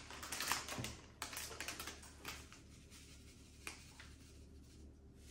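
Faint, quick clicks and light rattling as a spice shaker of Italian seasoning is shaken and tapped over a bowl of rice, mostly in the first two seconds or so, with one more click later on.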